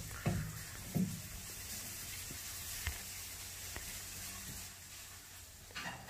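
Pet turtle walking on a wooden floor: a few soft knocks and scrapes of its claws and shell on the boards, in the first second and again near the end, over a steady hiss.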